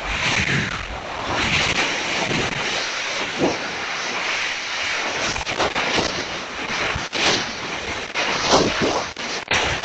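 Air rushing and buffeting over the rocket's onboard camera microphone in flight, a steady wind roar with a few sharp knocks near the end.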